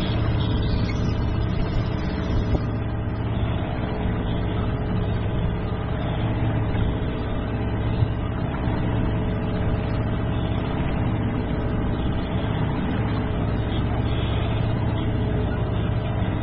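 Small sailboat's outboard motor running steadily at a constant speed.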